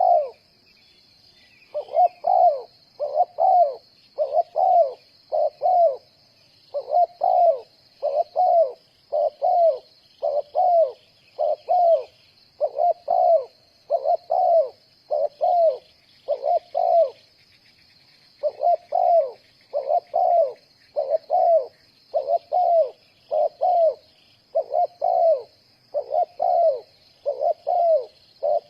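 Spotted dove cooing: short, mellow notes repeated one to two a second in a long series, broken by brief pauses. Faint chirps from smaller birds sound above the cooing, over a faint steady high hiss.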